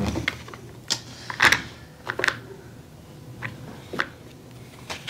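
Irregular clicks and taps of a deck of question cards and their small box being handled on a desk, about half a dozen short sharp sounds, the loudest about a second and a half in.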